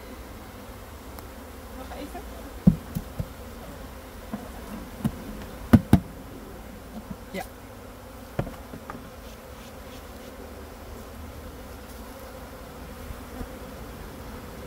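A honeybee swarm buzzing steadily around an open hive box as it is tipped in from a bucket, with several sharp knocks of equipment, the loudest about six seconds in.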